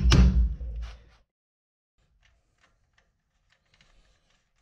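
Hammer blows driving the shock absorber's steel lower mounting bolt through its eye on the lower control arm: one hard strike just after the start, then a few lighter taps fading out by about a second in, followed by a few faint ticks.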